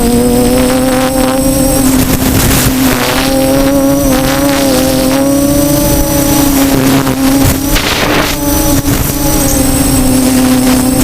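DJI F450 quadcopter's brushless motors and propellers in flight: a steady buzzing hum whose pitch wavers slightly as the motors change speed. Short gusts of wind noise on the microphone come and go, the clearest a little past halfway.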